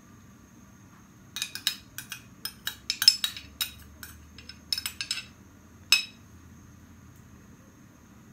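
A metal spoon clinking against a glass bowl and a nonstick frying pan as ghee is spooned into the pan: a quick run of light clinks over about four seconds, then one sharper clink about six seconds in.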